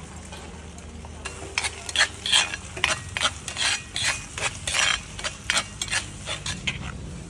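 A metal spoon scraping and stirring burong isda (fermented rice and fish) in a cast-iron pan: a run of quick scrapes, about two a second, starting just over a second in.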